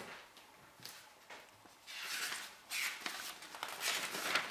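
Rustling and handling noise of fabric pieces being moved: a few light taps in the first second and a half, then a longer stretch of rustling from about two seconds in.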